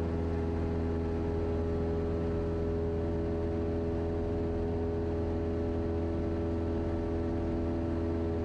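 Cessna 172's piston engine and propeller running steadily at high power in the climb after a go-around, heard from inside the cabin as a constant drone.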